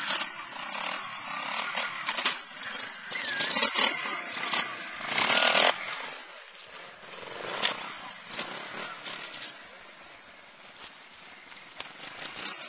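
Scorpa 4-Tricks trials motorcycle engine revving in short bursts, the loudest about five seconds in, then dropping to a lower running sound with a few brief blips.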